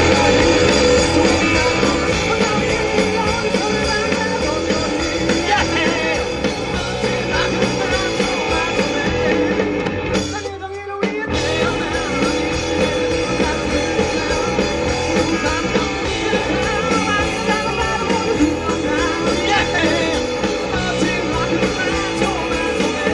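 Live rock band playing a fast song: electric guitars and drum kit with a singer, through the stage PA. The band drops out for a split second about ten and a half seconds in.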